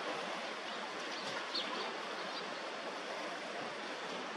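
Steady wash of small waves on choppy sea water, with a few faint high chirps about a second and a half in.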